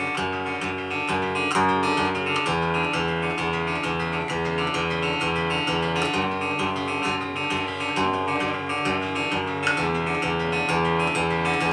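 Acoustic guitar strumming a steady chord pattern in an instrumental passage of a song, the chords changing a couple of times.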